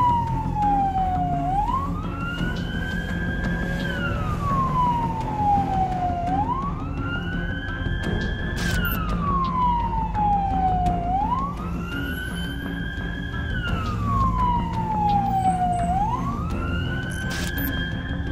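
Ambulance siren in a slow wail: in each cycle the pitch climbs quickly, holds briefly, then falls slowly, about four cycles of roughly five seconds each. It is heard from inside the vehicle, with engine and road rumble underneath.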